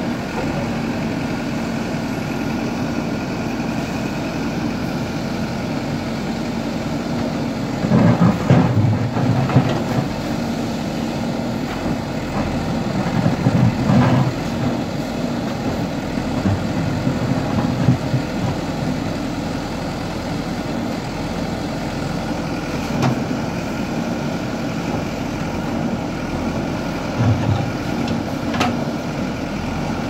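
JCB 3DX backhoe loader's diesel engine running steadily, with louder, rougher surges about eight and thirteen seconds in as the backhoe works. A few short knocks stand out over the engine.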